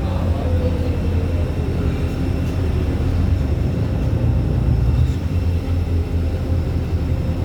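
Steady low rumble of an airliner's jet engines, with a few faint steady tones above it.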